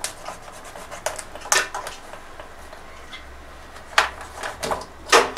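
A handful of sharp clicks at uneven intervals as a knife works against a live mud crab's hard shell.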